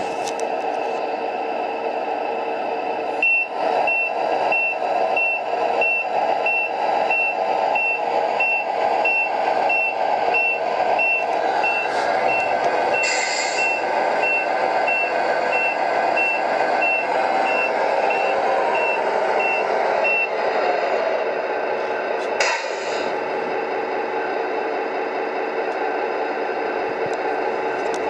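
Scale RC truck's electronic sound unit playing a running diesel engine, with a reversing beeper repeating evenly from a few seconds in until about two-thirds of the way through. Two short hisses come, one about halfway through and one later.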